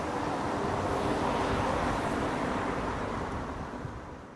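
Street traffic noise, a vehicle-like rush that fades away near the end.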